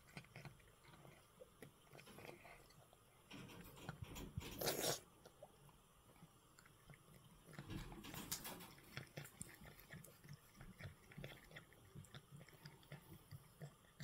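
A cat eating soft flaked fish: faint, irregular chewing with small wet mouth clicks, and a brief louder noise about four and a half seconds in.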